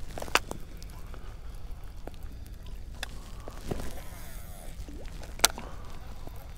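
Rod-and-reel sounds of casting and retrieving from a boat: a brief swish and three sharp clicks a few seconds apart, the last the loudest, over a low steady rumble.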